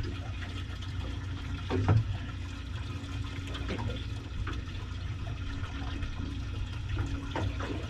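Water sloshing and running around a small boat over a steady low rumble, with one thump about two seconds in.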